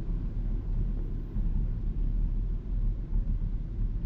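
A car's steady low road rumble heard from inside the cabin while driving on a wet road in heavy rain.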